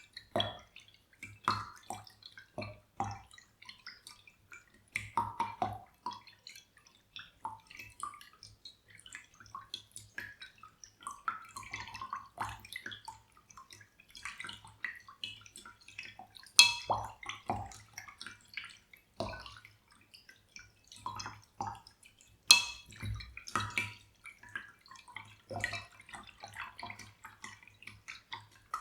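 Close-miked water dripping and splashing in small, irregular bursts, with two louder, sharper splashes about seventeen seconds in and again about six seconds later.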